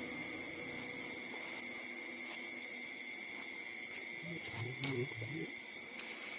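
Newborn puppies nursing, with a short low grunting whimper from a puppy about four and a half seconds in, over a steady high-pitched tone.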